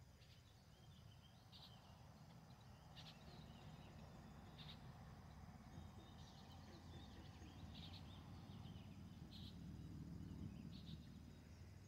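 Faint outdoor nature ambience: short bird chirps every second or two over a steady high insect drone and low background noise.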